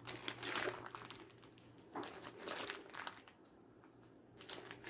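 Crinkling, rustling handling noise in three short spells, with quiet between them.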